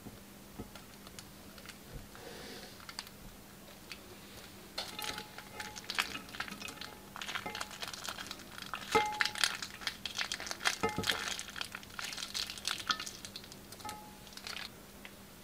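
Clear plastic piping bag crinkling and crackling in irregular bursts as it is squeezed to press glue out through its cut tip. The crinkling starts about five seconds in, and a small snip of scissors cutting the tip comes right at the start.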